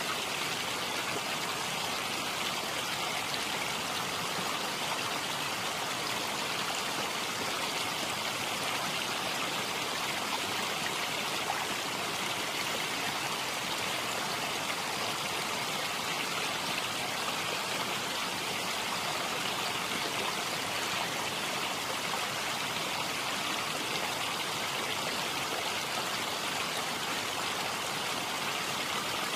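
Running water flowing steadily, as of a stream, with an even rushing that does not change.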